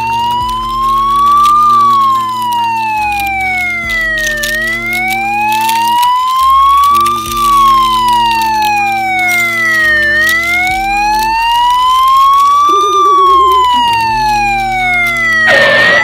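Police siren wailing, a slow wail that rises for about three seconds and falls for about three, repeated about three times over a steady low drone.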